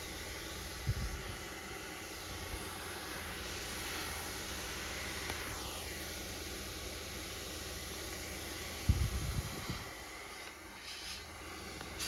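Steamer hissing steadily as steam is played over a comic book to soften its curled corners and spine ticks before pressing. There are two low bumps, the louder one about nine seconds in, after which the hiss is a little quieter.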